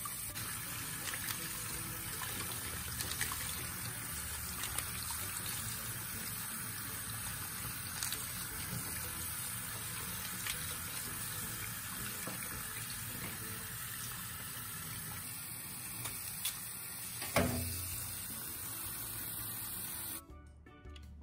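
Tap water running steadily into a stainless steel sink as raw crabs are rinsed and cleaned by hand under the stream, with a few faint clicks and one louder knock about 17 seconds in. The water stops abruptly near the end.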